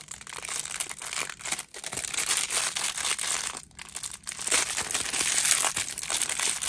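Thin clear plastic bag crinkling as fingers pick at it and tear it open, in crackly handling bursts with a few short pauses. It is loudest in the last couple of seconds.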